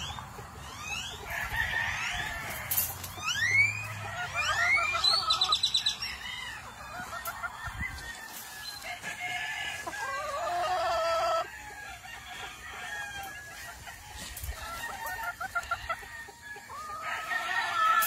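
Gamefowl roosters crowing and hens clucking, several calls overlapping. Two long crows come about four seconds in and about ten seconds in, the second cutting off sharply, over short rising chirps and clucks throughout.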